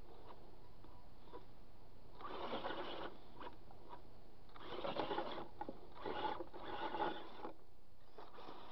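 Remo Hobby RC trail crawler's electric motor and gear drivetrain whirring in three short bursts as it is driven over the boards of a wood pile.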